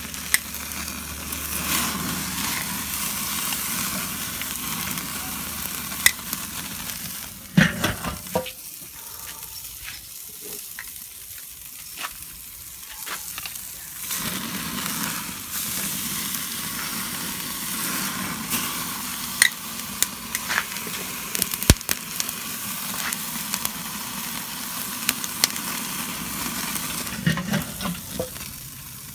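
Beef roast sizzling over hot charcoal on a Weber kettle grill, a steady hiss with scattered pops and crackles as fat drips onto the coals and flares. The sizzle drops away for several seconds about a third of the way in and then comes back, with a few sharp clicks along the way.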